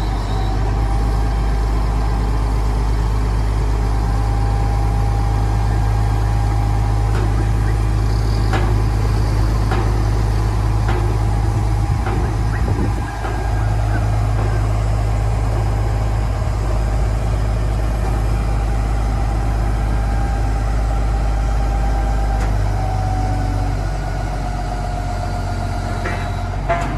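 Heavy engine machinery running steadily as a crane holds a slung boat: a low drone with a thin steady whine above it. The drone eases a little near the end.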